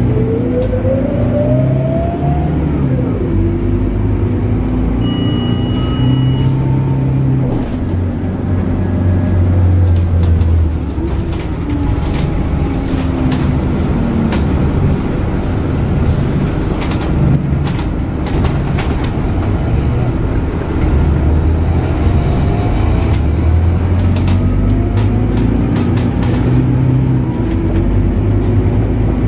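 Scania DC9 nine-litre six-cylinder diesel of a Scania K94UB bus, heard from inside the cabin as the bus drives. Its pitch rises as it accelerates at the start and again about twenty seconds in, with clicks and rattles from the cabin in between.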